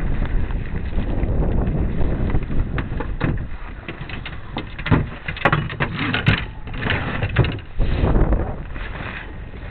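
Wind buffeting the microphone aboard a sailboat under way, with a cluster of sharp knocks and clatters about halfway through.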